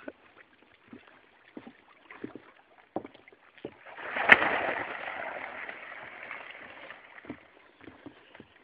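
Water splashing: a few light knocks, then about four seconds in a sharp crack followed by a splash that fades away over about three seconds.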